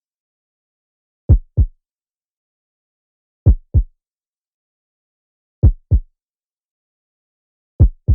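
Heartbeat sound effect: a 'lub-dub' pair of short low thumps, the second a little softer, repeating slowly about once every two seconds, four beats in all, with silence between beats.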